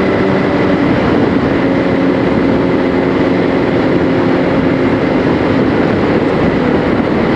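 Kawasaki ZX-10R's inline-four engine running steadily while the bike cruises, under a loud, even rush of wind and road noise.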